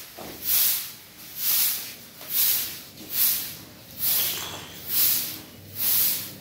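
Soft grass broom sweeping a cement floor in steady strokes: about seven swishes, a little under a second apart.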